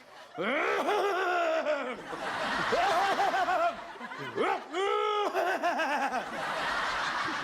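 Studio audience laughing, with loud voiced peals over a general murmur of laughter and a sharp high-pitched laugh about five seconds in.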